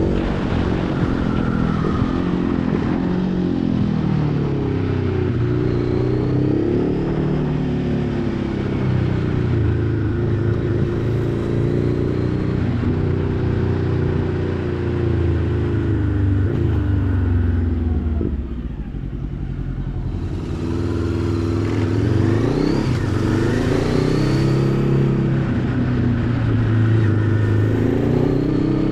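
Motorcycle engine running under way, its revs rising and falling repeatedly as the rider works the throttle and gears. About two-thirds through the revs drop low and quieter for a moment, then climb again in a rising pull as it accelerates.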